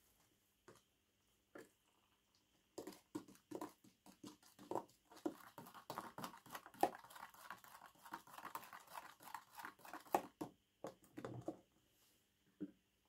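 A metal stirrer mixing a thick plaster-and-water slurry in a glass tumbler: a few scattered taps, then rapid scraping and clinking against the glass that starts about three seconds in and stops about a second and a half before the end.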